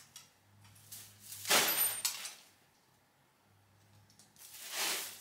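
Two short rustling, scraping noises as an artificial Christmas tree is handled and worked into its stand: a louder one about a second and a half in, a weaker one near the end.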